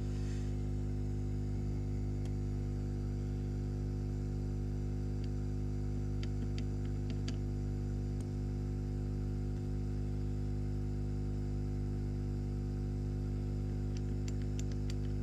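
Hot air rework station blowing steadily with an electrical hum while heating a USB-C port's solder joints to desolder it. A few faint light clicks come in the middle and again near the end.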